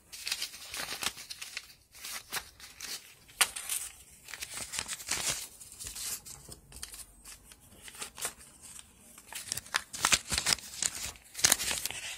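Paper banknotes rustling and crinkling as a stack of bills is handled, in short, irregular crackles.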